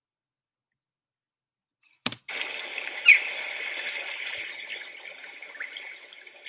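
Silence for about two seconds, then a click as the video starts and a steady rushing of swirling sea water from an ocean whirlpool, thin-sounding as played back from an online video. There is a short louder sound about a second after it starts, and the rushing grows quieter near the end.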